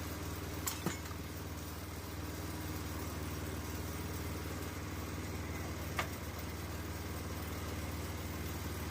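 An engine idling steadily. There are two sharp knocks just under a second in and another about six seconds in.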